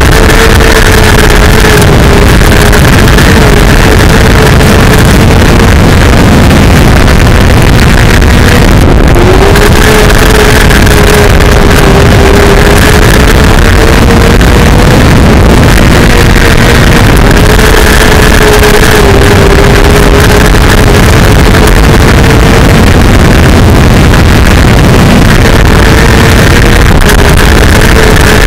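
Mini sprint race car engine at high revs, heard from the cockpit, with its pitch dipping and climbing back a few times as the car is driven around the track. Heavy wind noise rushes over the microphone, and the recording is overloaded throughout.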